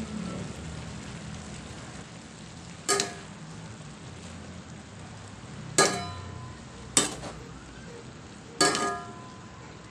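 Pancit canton noodles with cabbage and carrots sizzling in a pan as they are stirred, with four sharp metallic knocks of the cooking utensil against the pan, each ringing briefly.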